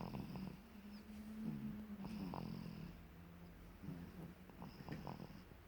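A little baby snoring softly in sleep, with a hissy breath about every two and a half seconds, three times, over a steady low drone.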